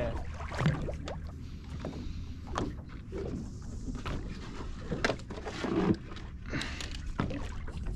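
Ambient sound aboard a small boat at sea: a steady low rumble and water against the hull, with a few light knocks scattered through.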